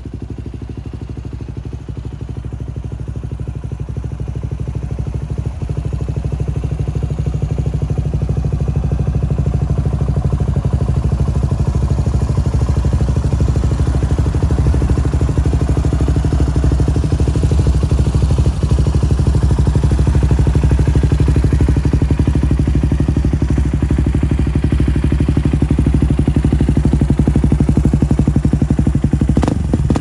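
Yamaha WR250X's 250 cc single-cylinder four-stroke engine idling steadily through an FMF aftermarket silencer. It grows louder over the first ten seconds or so, then holds steady.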